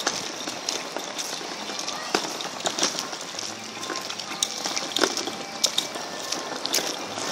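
Footsteps on a paved path, a sharp step every half second or so, over the rolling rumble of a wheeled plastic bin being pulled along.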